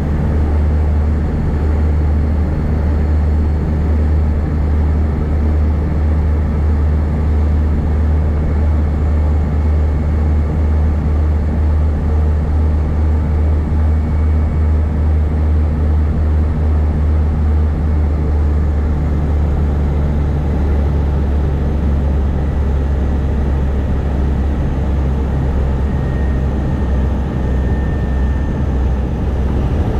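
Twin Otter floatplane's two PT6A turboprop engines and propellers, heard from inside the cabin, droning steadily on final approach to a water landing. A deep propeller hum dominates, easing slightly in the last ten seconds.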